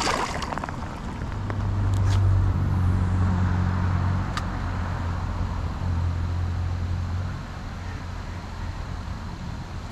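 A splash of water at the very start. Then the steady low hum of a passing motor vehicle swells and fades over several seconds, with two sharp clicks along the way.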